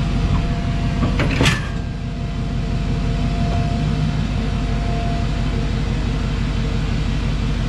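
Vehicle engine running steadily with an even low pulsing, with a brief sharp clatter and squeal about a second and a half in.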